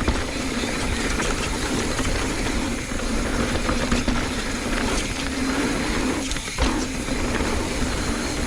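Mountain bike rolling down a dirt trail: steady tyre and wind noise with the chain and frame rattling over the bumps, briefly dipping a little past six seconds in.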